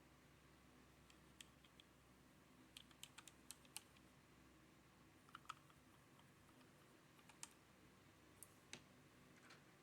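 Faint, irregular clicks and taps from a HyperX Alloy Origins Core mechanical keyboard with red switches being handled while it is cleaned: keys and keycaps clacking in small clusters, with a quicker run of clicks about three seconds in.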